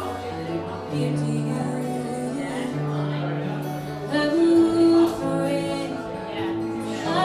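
Acoustic guitar playing with a singing voice holding long notes; it grows louder about four seconds in.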